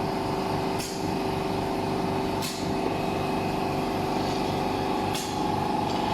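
Laser welding machine running: a steady hum with several tones over an even hiss, with a few short clicks.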